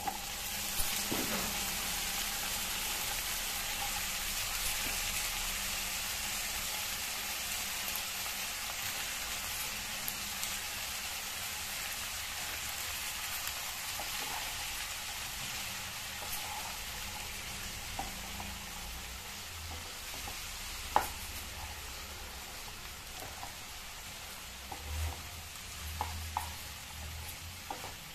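Cauliflower florets sizzling in hot oil with fried onions in a nonstick kadai. The hiss starts suddenly as they go in and eases off slowly. A wooden spatula stirs them, with a few knocks against the pan, the sharpest about 21 seconds in.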